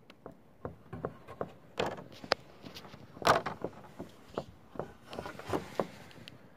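Footsteps on weathered wooden boardwalk planks: irregular knocks and clicks of shoes on boards, with the loudest step about three seconds in.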